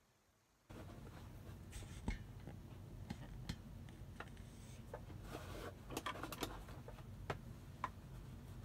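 Fabric rustling and scraping with scattered small clicks and taps as cotton mask fabric is handled and positioned at a sewing machine, over a low steady hum. The sound starts abruptly just under a second in, and the sharpest click comes about two seconds in.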